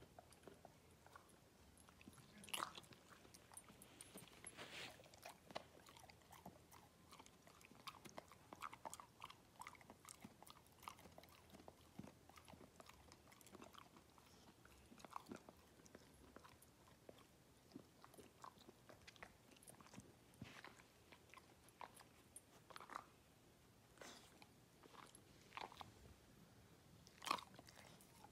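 A black Labrador chewing a treat: faint, irregular crunching and clicking of teeth, with a few louder crunches.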